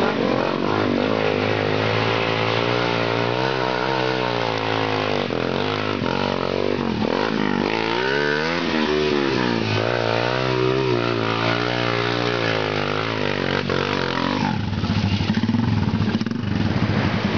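Trail motorcycle engine revving, its pitch rising and falling again and again as the bike works for grip on a muddy dirt climb with its rear wheel spinning. It gets a little louder near the end as the bike comes close.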